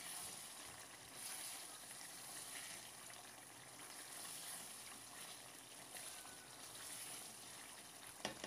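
Eggplant curry in a yogurt masala sizzling and bubbling faintly in a pan while a spatula stirs it: a soft, steady hiss.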